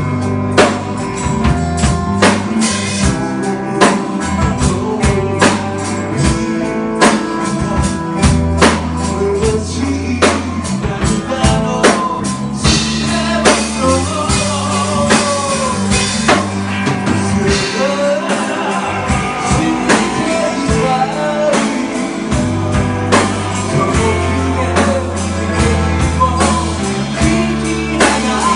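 Live band music: acoustic guitar, electric bass and a drum kit keeping a steady beat, with a male voice singing.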